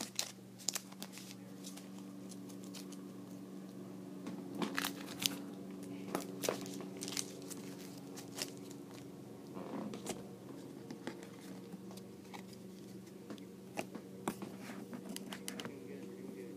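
Faint crinkling, rustling and light clicks of trading cards and their plastic packaging being handled, over a steady low hum.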